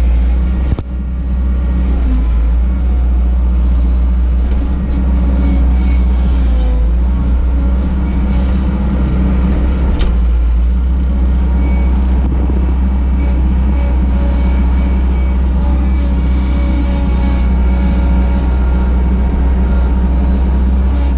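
1988 Bobcat 743 skid steer engine running steadily under work, a loud continuous low drone, with a brief dip in level just under a second in.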